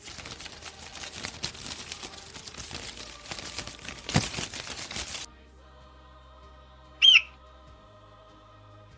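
A noisy rush with crackles for about five seconds that cuts off suddenly. Then, about seven seconds in, a single short, loud, whistled bird cry that bends down in pitch, over faint background music.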